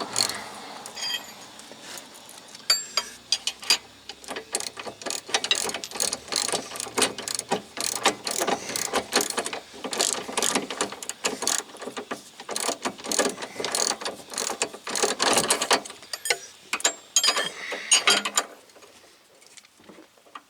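Hand ratchet wrench clicking as a small bolt is run in with quick back-and-forth strokes, in runs of rapid clicks with short pauses between them.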